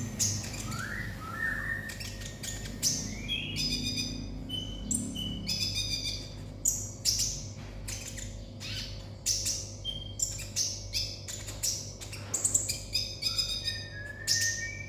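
Olive-backed sunbird (kolibri ninja) singing a fast, unbroken string of sharp chirps, buzzy trills and short whistled notes, the frantic 'konslet' style of song.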